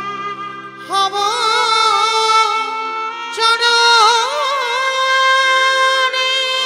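A woman singing a Bengali kirtan devotional song, holding long wavering melismatic notes that come in afresh about a second in and again near the middle, over steady held instrumental notes.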